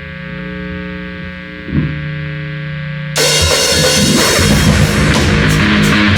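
Rock band opening a song: a held chord rings steadily and steps down to a lower note about two seconds in. A little past three seconds the full band crashes in loud, with drum kit and cymbals.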